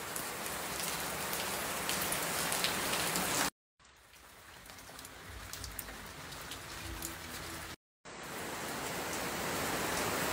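Steady rain falling and pattering, with many small drop ticks. It comes in three stretches, each cut off by a brief total silence.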